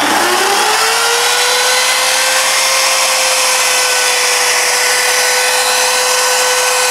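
A 750-watt Bauer palm router switched on at its highest speed setting and running without load: the motor spins up with a rising whine that levels off about a second in, then runs steadily and very loud, reading around 100 dB on a phone meter.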